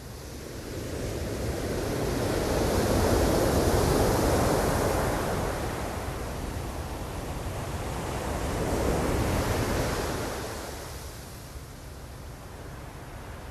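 Ocean surf: two waves swell up and wash in, the first loudest about three to four seconds in and the second around nine seconds, then the sound ebbs.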